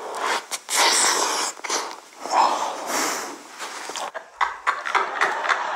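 Crunching and chewing of a big mouthful of Maltesers, malted-milk chocolate balls, with sharp irregular crunches and breathy mouth noises throughout.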